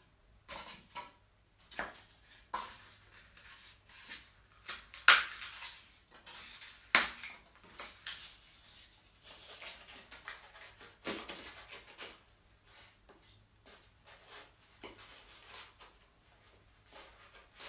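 Irregular clicks, snips and rustles of hand pruning work on a wild olive bonsai: a tool cutting and the branches and leaves being handled. The sharpest, loudest clicks come about five and seven seconds in.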